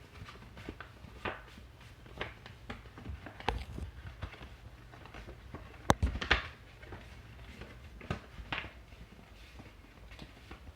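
Thick paper being handled and folded: scattered short rustles and creasing sounds, with one sharp tap about six seconds in.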